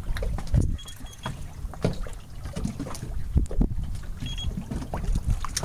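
Low rumble of a boat on open water, with irregular knocks and thumps and a few short high pips.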